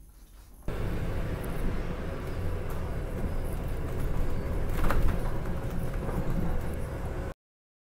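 Inside a moving double-decker bus: steady engine and road rumble, with a sharp knock about five seconds in. The sound cuts off suddenly near the end.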